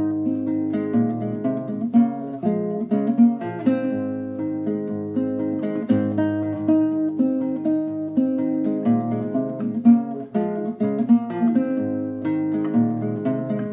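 Solo nylon-string classical guitar, capoed at the first fret, fingerpicked: a steady bass line of plucked notes under a higher melody.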